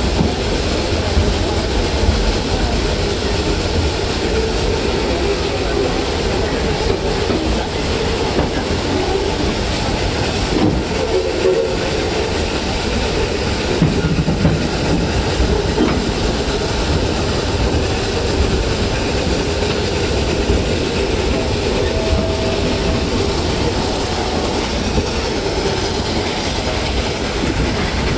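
Narrow-gauge train climbing a steep grade behind a two-truck Shay geared steam locomotive working at full throttle: a steady, loud rumble of the engine and the cars rolling on the rails. A thin steady squeal comes and goes in the last several seconds.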